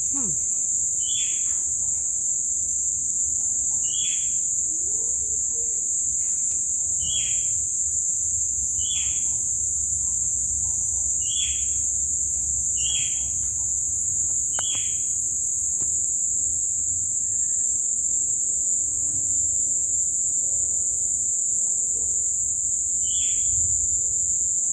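Dense chorus of crickets, a loud steady high-pitched trill throughout. Over it, a short falling chirp repeats every second or two, then stops for several seconds in the second half before returning near the end.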